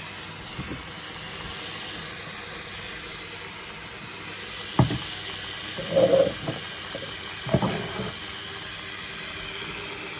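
Water running from a tap into a container, a steady hiss, with a few hard knocks about five, six and seven and a half seconds in.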